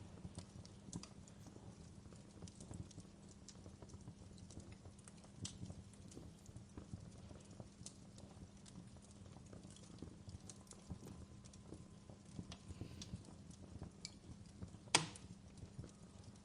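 Wood fire crackling in a fireplace: irregular small pops and snaps over a low steady rumble, with one sharp, louder pop near the end.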